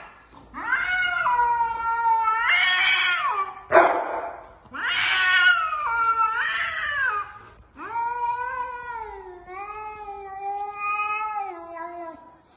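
Cats yowling at each other in a standoff: a series of long, drawn-out wails that rise and fall in pitch, the last one lower and steadier.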